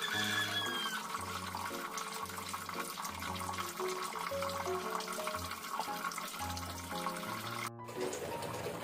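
Background music with a repeating bass line over the bubbling of chicken adobo simmering in its sauce in a wok, with a brief dropout near the end.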